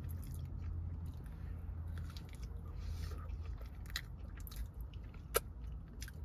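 Close mouth sounds of someone chewing a blueberry cake donut with streusel topping: soft wet chewing clicks, with one sharper click about five seconds in, over a low steady hum.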